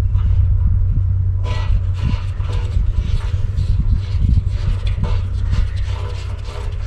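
Small metallic clicks and scrapes of a hose fitting being worked onto a large propane tank's valve, over a steady low rumble.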